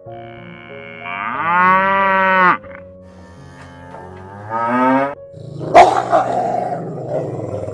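An animal calls twice in long, pitched cries over soft background music, then makes a sudden rough, noisy call that trails off.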